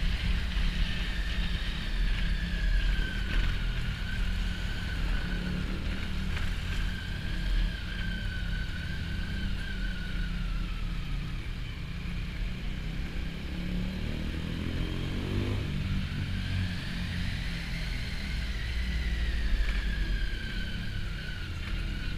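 Motorcycle engine running at low town speed, heard from the rider's own bike with a heavy low rumble of wind and road noise on the microphone. Its pitch eases off around the middle and rises again as the throttle opens.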